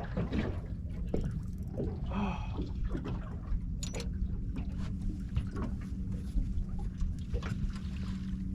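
Small boat afloat: a steady low hum and rumble, with water slapping and scattered light knocks and clicks from the hull and tackle.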